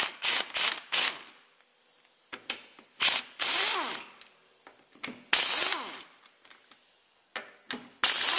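Hand socket ratchet clicking in four short bursts, each under a second, as the 12 mm bolts around a gearbox casing are wound out.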